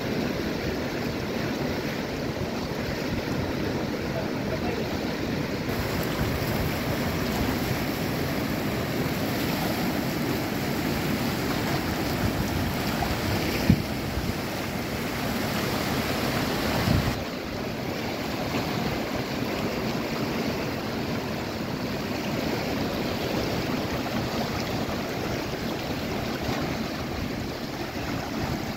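River rapids: fast water rushing and churning over shallow rocks, a steady wash of noise. A single sharp knock sounds about halfway through, and a dull thump a few seconds later.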